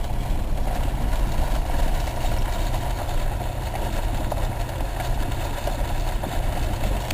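Nissan Pathfinder SUV driving slowly on a dirt track, heard from inside the cabin: a steady engine drone with low road rumble.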